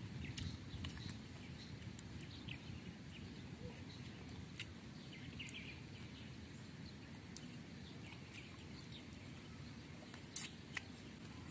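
Faint eating sounds of someone chewing and sucking on a cooked chicken foot: scattered small mouth clicks and smacks, with a sharper pair of clicks near the end, over low steady background noise.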